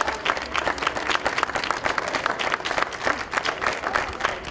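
Crowd applauding: many hands clapping at once, steady throughout.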